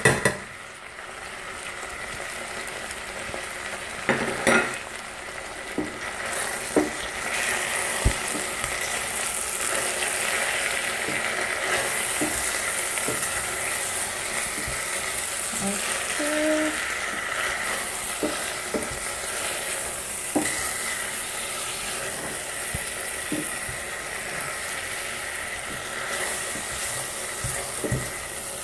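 Eggplant, onion and green pepper frying in oil in a stainless steel saucepan, with a steady sizzle. Scattered knocks and scrapes come from a spatula stirring against the pot.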